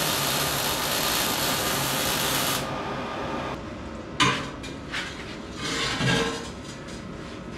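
Angle grinder working on steel, then spinning down about three seconds in; a few sharp knocks of tools being handled follow.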